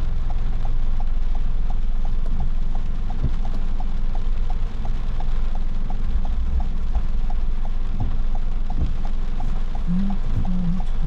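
Car turn-signal indicator ticking steadily, about three clicks a second, over the low rumble of the car in the rain. A few short low hums come in near the end.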